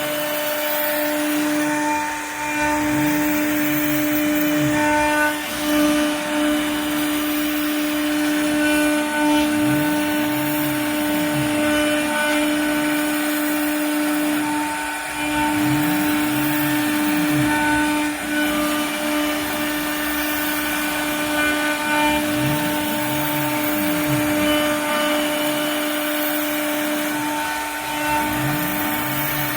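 CNC router machining, with a steady whine from the spindle. Underneath it, a lower motor sound rises and falls in pitch about every six to seven seconds as the axes speed up and slow down on each pass.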